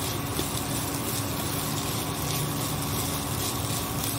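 A spatula stirs and scrapes shredded chicken and onions in a nonstick kadhai as they fry, over a steady hiss and a low steady hum.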